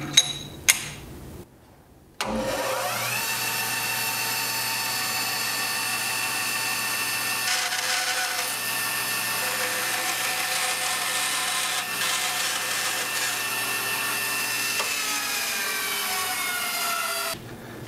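Laguna 1412 bandsaw switching on with a short rising whine, running steadily while an aluminum miter-track insert is fed through the blade to cut a slot, then switched off and winding down with a falling whine near the end.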